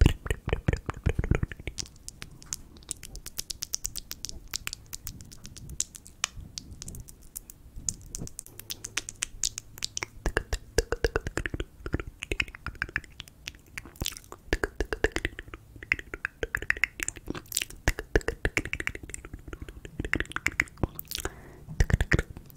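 Close-miked ASMR mouth sounds: wet tongue and lip clicks and smacks, coming in quick runs of clicks, with softer breathy mouth noises between them in the second half.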